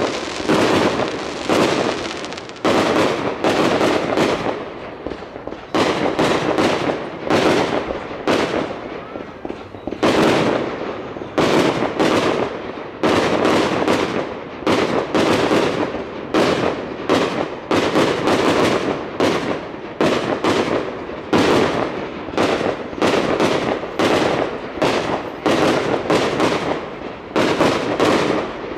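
Aerial fireworks bursting in a steady, rapid barrage of bangs, about one or two a second, each with a short echo.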